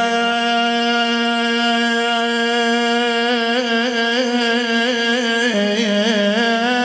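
A man's chanting voice holds one long sung note for about five and a half seconds, then steps down to a lower note with quick ornamental turns. It is a single voice with no instruments: the drawn-out melodic line of a Shia Muharram lament (latmiya) chanted into a microphone.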